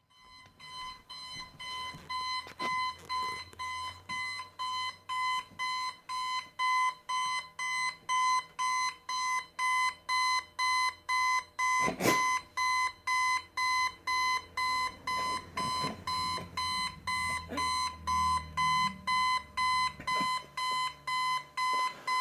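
Electronic alarm clock beeping rapidly and without pause, about two to three beeps a second on one high tone, getting louder over the first few seconds. There is a single knock about halfway through.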